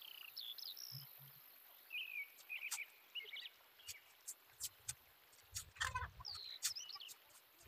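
Birds chirping in the background: short, high calls that slide down or up in pitch, coming in small clusters near the start, through the middle and again near the end. Scattered light clicks and a brief low rustle from a roll of masking tape being handled.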